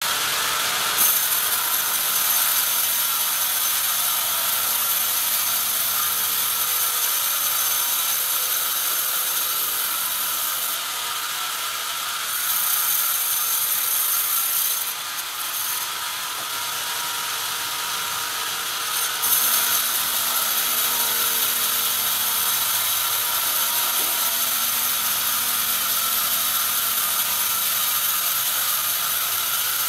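Band sawmill's blade running and cutting lengthwise through a large log, a steady high hiss with faint steady tones. It eases briefly a couple of times midway.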